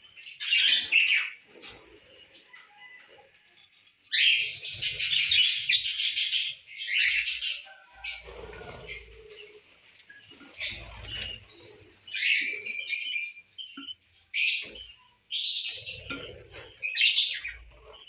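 Small pet parrots, budgerigars and lovebirds, chirping and chattering in high bursts of one to two seconds with short gaps between them.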